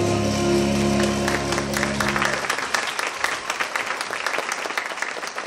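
A jazz band's final held chord rings out and stops about two and a half seconds in, while audience applause starts about a second in and carries on.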